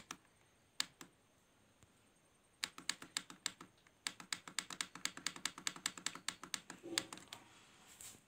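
Faint rapid clicking, about seven light clicks a second, as the rotary volume knob on the front of an Alpine CDE-9870 car stereo is turned up; a few single clicks come first, and the train starts about two and a half seconds in and stops about a second before the end.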